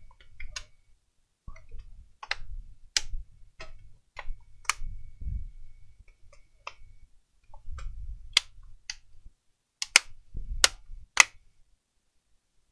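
Plastic snap clips of a laptop's top cover clicking into place as it is pressed down around its edges: a dozen or so irregular sharp clicks, the loudest bunched in the second half, with soft rubbing of hands on plastic between them.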